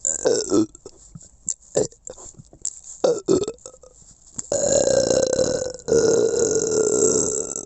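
A person belching: a few short burps in the first half, then two long drawn-out belches at a steady pitch, one straight after the other.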